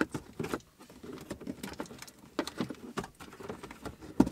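Irregular light plastic clicks and scuffs as an aftermarket radio in its mounting bracket is worked into the dash opening, with the wiring harnesses rubbing behind it; one sharper click near the end.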